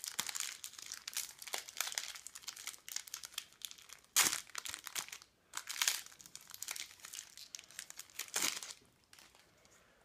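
Shiny foil wrapper of a Topps Match Attax trading-card packet crinkling as it is torn open and the cards are pulled out. It crackles throughout, with three louder rips, then goes quiet near the end.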